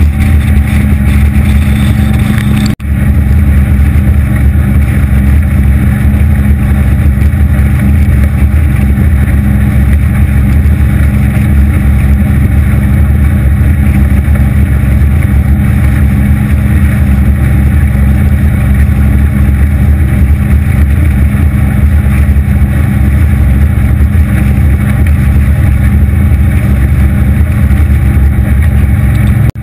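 Aluminium boat running at speed on open water under its 250 hp Evinrude outboard: a steady, loud low drone of engine and hull, broken once by a brief dropout about three seconds in.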